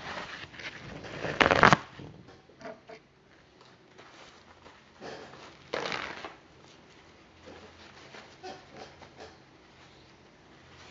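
Aerosol contact cleaner spraying in a hiss that cuts off after a loud final blast under two seconds in, then rustling and light scraping as the circuit board is wiped down with a cloth.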